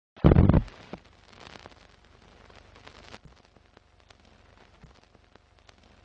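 Sound of an old-style film countdown leader: a heavy low thump at the start, then scattered clicks and crackles of worn film over a faint hiss.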